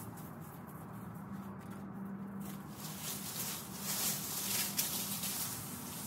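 Footsteps crunching and rustling through cut branches and dry leaves, loudest from about halfway through, over a steady low hum.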